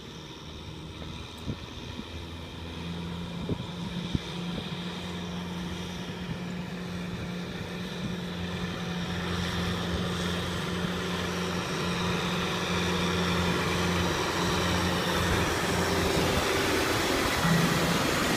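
Kubota M6040 tractor's diesel engine running steadily under load as it drives a rotary tiller through flooded paddy mud, growing steadily louder as the tractor approaches and passes close by near the end.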